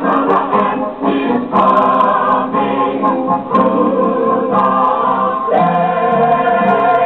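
A chorus of voices singing a show tune with instrumental accompaniment, holding one long note over the last second and a half, heard through a television's speaker.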